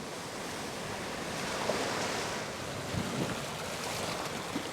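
Ocean surf washing in with wind, a steady rushing that swells a little partway through.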